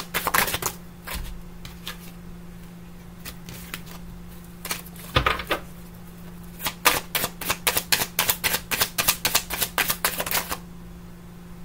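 Tarot deck being shuffled by hand: runs of quick card clicks and slaps at about five a second, a short run at the start, a brief one midway and a longer run in the second half that stops near the end. A steady low hum lies underneath.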